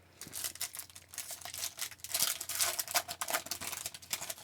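A trading-card pack wrapper being torn open and crinkled, an irregular run of crackles and sharp clicks.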